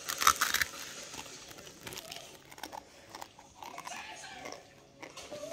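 A bite into a block of dry, uncooked instant noodles: a loud crunch at the start, then quieter crunchy chewing.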